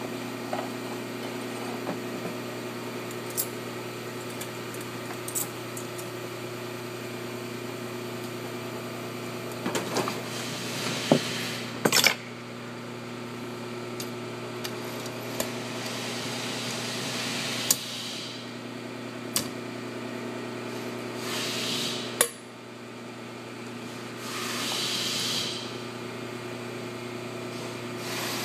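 Valve springs, retainers and tools clicking and clinking against a Cummins 855 cast-iron cylinder head during valve reassembly, over a steady low hum. The clicks are sharp and scattered, the loudest about 11 to 12 seconds in, and a few brief hisses come in the second half.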